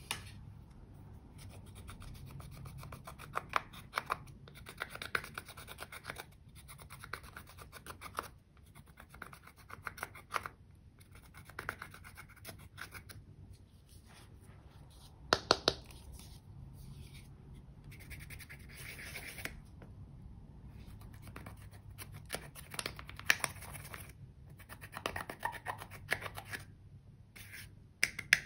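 Plastic spatula scraping pressed powder eyeshadow out of the palette's pans, in bursts of quick scratchy strokes with short pauses between them. A few sharper clicks stand out in the middle and later on.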